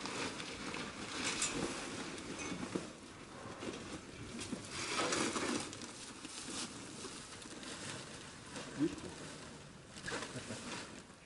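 Sacks and straw bedding rustling as sacks are carried and set down, with footsteps in the straw, in a series of irregular bursts. A short low sound comes about nine seconds in.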